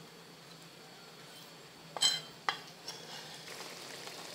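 A sharp metal clink about two seconds in, then curry sauce sizzling steadily in a hot pan as a metal spatula stirs it.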